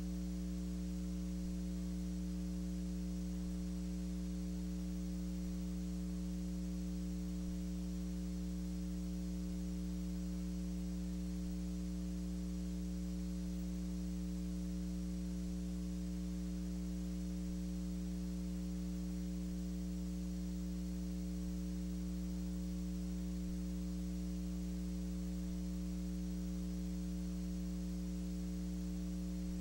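Steady electrical mains hum: a low buzz with several overtones over a faint hiss, unchanging throughout.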